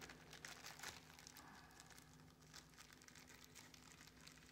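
Faint crinkling of a thin clear plastic-film balloon as fingers pinch and tape its neck, with a low steady hum underneath.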